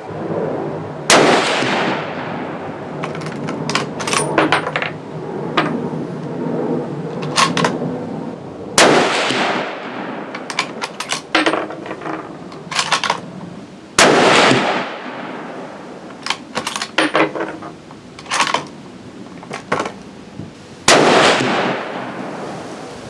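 Savage Axis bolt-action rifle in .270 Winchester fired four times, five to seven seconds apart, each shot followed by a long echoing decay. Short metallic clicks of the bolt being worked come between the shots.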